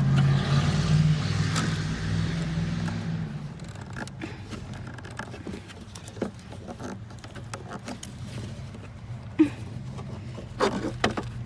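Small plastic clicks and scrapes of hands working the tail-light wiring connector to unplug it, with a sharper click about nine seconds in and a cluster of clicks near the end. A vehicle's low hum fades away over the first few seconds.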